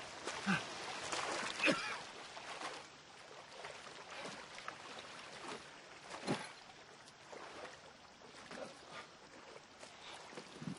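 Lake water splashing and sloshing as a person wades out onto the bank, with a few sharper splashes, the clearest about six seconds in.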